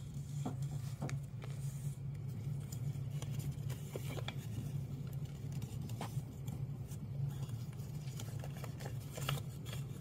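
A paper twenty-dollar bill being folded back and forth by hand into tight pleats, giving soft, scattered crinkles and clicks of the paper. A steady low hum runs underneath.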